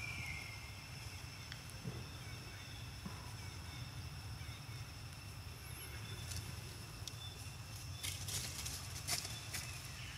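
A plastic water bottle crackling and clicking in a cluster of sharp snaps about eight seconds in, as a baby monkey grips and bites it, over a steady outdoor background with a low rumble.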